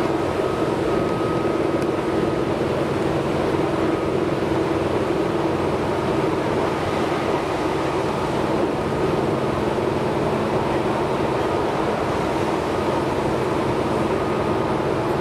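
Tobu 6050 series electric train running steadily at speed, heard from inside the passenger car: a constant running noise of motors and wheels on rails, with a faint steady tone above it.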